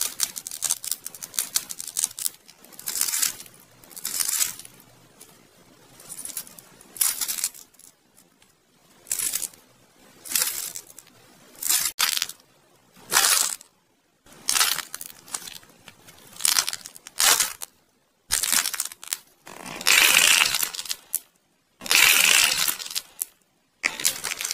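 Clay being crushed and torn apart in the hands: a run of separate crisp crunching and crackling bursts, each up to about a second long, with brief pauses between. The loudest bursts come near the end.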